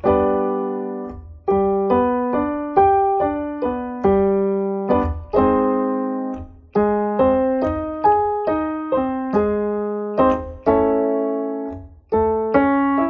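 Electronic keyboard with a piano sound playing a vocal warm-up pattern. A chord is struck, then seven single notes climb up the arpeggio to the octave and back down (1-3-5-8-5-3-1), the last note held. The pattern repeats about every five seconds.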